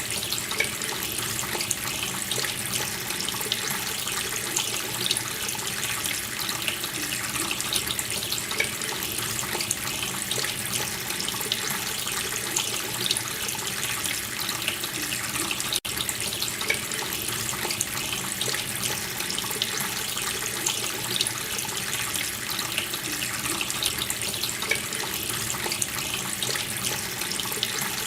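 Water running steadily from a tap into a sink, with a brief break about halfway through.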